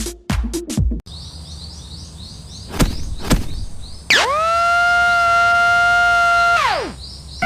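Electronic dance beat that cuts off about a second in, giving way to outdoor ambience with repeated bird-like chirps and two sharp knocks. Then a siren wails: it rises quickly, holds one steady tone for about two and a half seconds, and slides down again.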